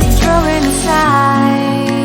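Background pop song playing: a melodic line slides in pitch, and the deep bass drops out about a second in.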